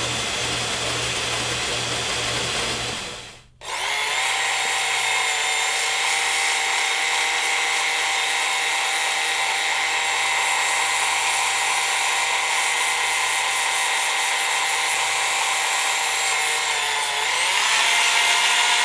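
Small abrasive belt sander with Work Sharp belts running steadily with a whine, polishing a stacked leather knife handle. It drops out briefly about three and a half seconds in and grows louder near the end.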